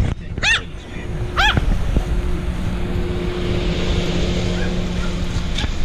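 A small shaggy dog yips twice, sharp and high, about half a second and a second and a half in. Then a steady low hum and rushing noise carry on underneath.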